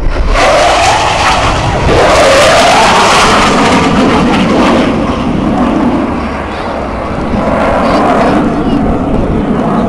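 Blue Angels F/A-18 Hornet jet flying over, a loud jet roar that rises and falls in pitch as it passes. The roar eases about six seconds in and builds again near the end.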